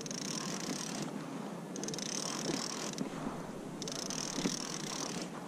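Fishing reel being wound in three spells of about a second each, a whirring with fine clicks, as a hooked fish is reeled up to the kayak.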